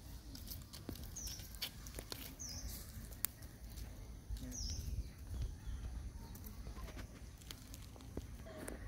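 Outdoor ambience: three short, high, falling chirps, scattered light clicks and a steady low rumble.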